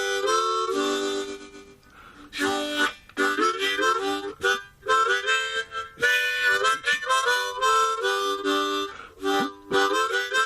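Background music: a harmonica playing a tune in short phrases of held and chordal notes.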